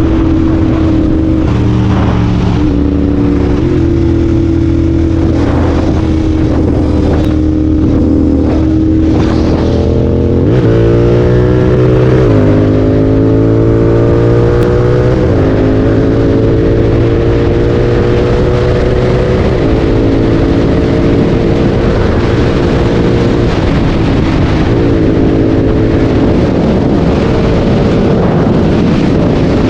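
Royal Enfield Continental GT 650's parallel-twin engine through a Red Rooster aftermarket exhaust, heard onboard while riding. It holds a steady pitch for about ten seconds, then revs up sharply, and the pitch steps up and down several times as the bike accelerates and changes gear.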